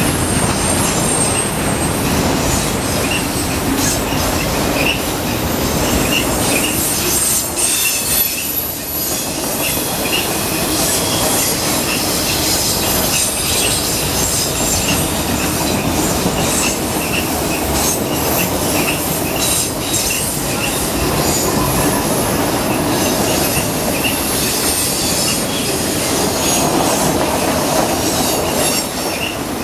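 Freight train of enclosed autorack cars rolling past close by: a steady loud noise of steel wheels on rail, with thin high wheel squeals coming and going.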